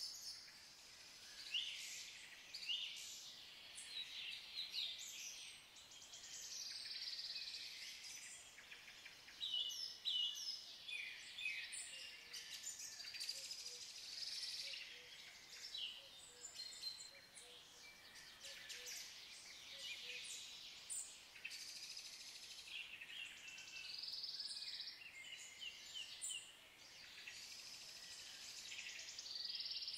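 Woodland birdsong: several birds singing and calling at once, a continuous chorus of chirps and short trills.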